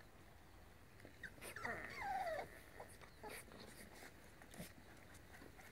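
A Scottish Terrier puppy gives one whimper of about a second, starting about a second and a half in, its pitch wavering and sliding downward. Faint scattered clicks come before and after it.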